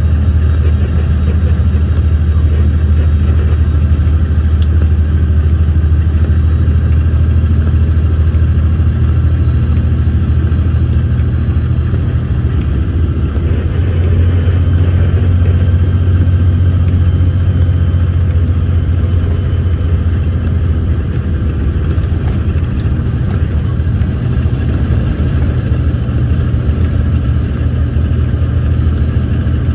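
Logging truck's diesel engine heard from inside the cab, running steadily with a deep, loud drone; its note shifts about twelve to fourteen seconds in.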